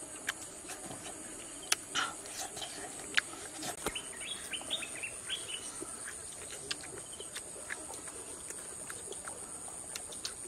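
Forest ambience: a steady, high insect drone, with a bird chirping in a quick run of short calls about four to five seconds in. Scattered small clicks and smacks of people eating chicken by hand sound close by.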